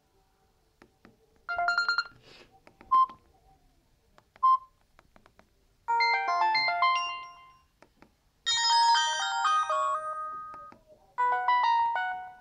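Samsung GT-E1200 mobile phone ringtones: four short electronic melodies separated by pauses, with two single beeps between the first two melodies.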